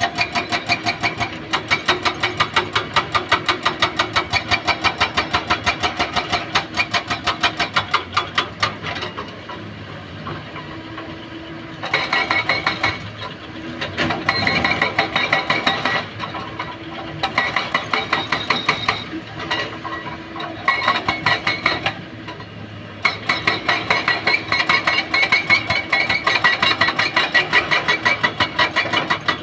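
Heavy excavator working, its diesel engine and hydraulics giving a loud, fast rhythmic clatter with a few steady tones over it. It eases off for a few seconds twice, about ten seconds in and again after twenty.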